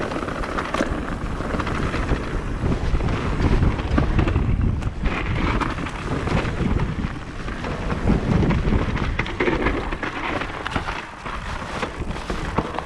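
Propain Ekano e-mountain bike riding down a trail: wind buffeting the microphone over the rumble of the tyres, with many short clicks and knocks of the bike rattling over the ground.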